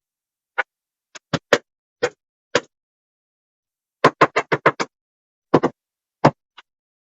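A series of short, sharp knocks with silence between them: single hits at uneven intervals, and a quick run of about six knocks about four seconds in.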